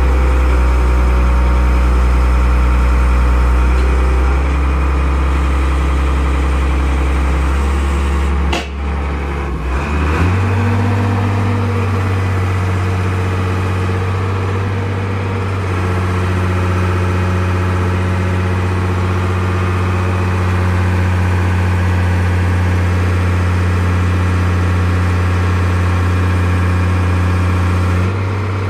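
Mitsubishi MS120 excavator's diesel engine running steadily while the hydraulic boom and grapple are worked. About nine seconds in the engine note dips briefly, then settles at a higher, steady pitch as the engine speed comes up.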